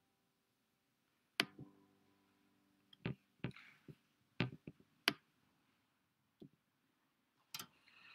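A series of irregular sharp knocks and clicks, a few with a short low ringing after them, spaced from under half a second to about two seconds apart.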